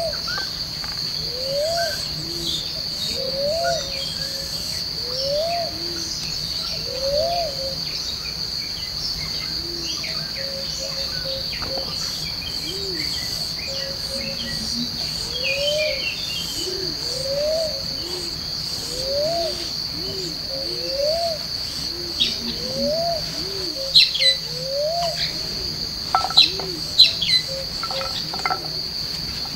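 Forest animal chorus: a steady high-pitched insect drone, with a short low call that rises and falls, repeated every second or two. Several sharp, loud chirps come near the end.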